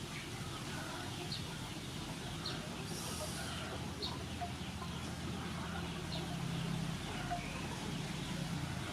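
Outdoor farmyard ambience: short bird chirps every second or two, with chickens clucking and a low steady hum underneath.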